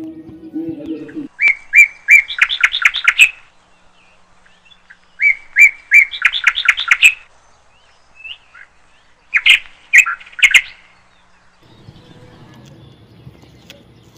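A parrot calling in three bouts of sharp, shrill chirps, each starting with a few spaced notes and quickening into a fast run of about seven calls a second. A low steady hum lies under the first second and the last two seconds.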